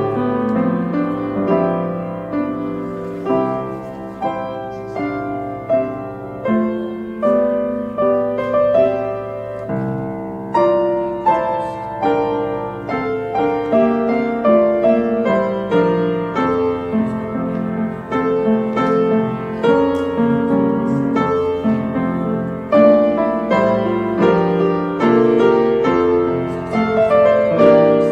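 Piano playing a slow piece of chords under a melody, each note struck and left to ring.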